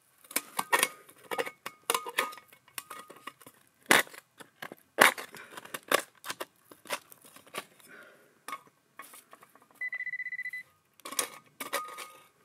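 A small hand digger scraping and chopping into stony riverbed gravel: a rapid, irregular run of scrapes and metal-on-stone clinks. About ten seconds in, the metal-detecting gear gives one short, steady electronic beep.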